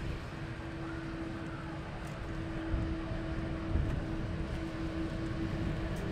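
Airliner jet engines at low power: a steady low rumble with a constant hum, from an Embraer E170 on short final and a wide-body twin jet taxiing close by.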